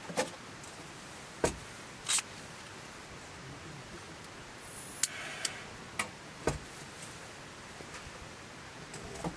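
About eight short, sharp clicks and knocks at irregular intervals, with a slightly longer scrape about two seconds in, over a faint steady hiss.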